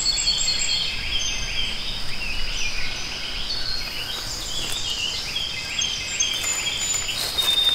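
Outdoor creek-side ambience: birds chirping in short, repeated calls over a steady high tone and the even rush of flowing water.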